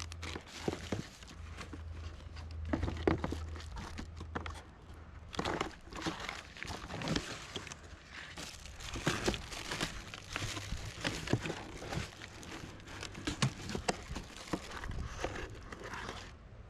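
Packaging crinkling and rustling in irregular bursts, with small clicks and knocks, as a new chainsaw is unpacked from its box.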